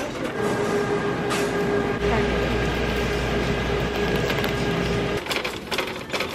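A red plastic-and-metal Target shopping cart rattling and clattering as it is pushed along a store floor, its wheels rumbling: the loudest cart ever. The rattle turns sharper and clickier near the end.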